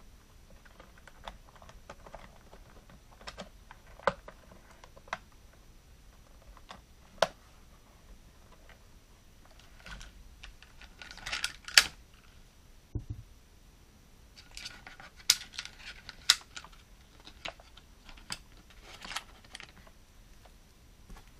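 Hard plastic toy parts clicking and knocking as they are handled: an action figure being fitted into a toy jeep, and a toy trailer with a plastic cage being handled. Irregular sharp clicks, busiest a little past halfway and again toward the end.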